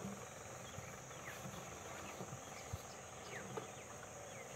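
Steady high-pitched drone of crickets or similar insects, with scattered faint short chirps and a couple of soft knocks.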